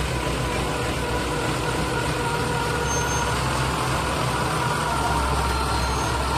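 Forklift engine running steadily while it pushes a heavy steel machine beam, a low rumble with a thin steady whine on top.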